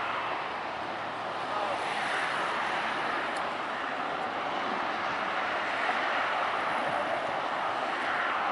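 Boeing 777-200ER airliner landing: the steady rushing noise of its jet engines, growing louder about two seconds in.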